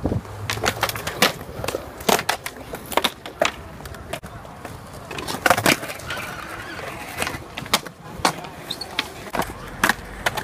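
Skateboard wheels rolling on concrete, with many sharp clacks and knocks of the board landing and striking the ground and ledges, a run of them bunched together about five and a half seconds in.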